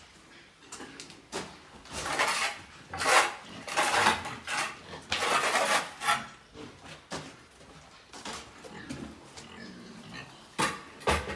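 A brush scrubbing pig excreta off the pen floor in a run of rasping strokes, the loudest between about two and six seconds in, with two shorter strokes near the end.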